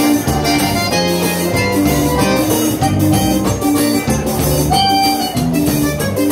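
Live band playing: piano accordion carrying the melody over drum kit and electric bass, with a steady beat.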